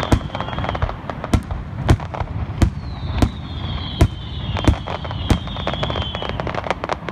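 Aerial firework shells bursting: a rapid, irregular string of sharp bangs, several a second at times, over a continuous low rumble. Twice a drawn-out high hiss runs for a few seconds, falling slightly in pitch.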